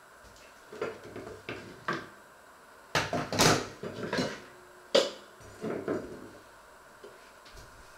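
Kitchen clatter of dishes and pots being handled: irregular knocks and bumps every half-second or so, the loudest about three seconds and five seconds in.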